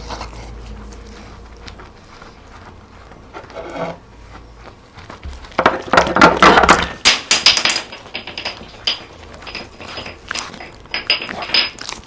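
Dry dog food sounds: a loud burst of rattling, crunching clicks about five and a half seconds in, then scattered crunches and clicks.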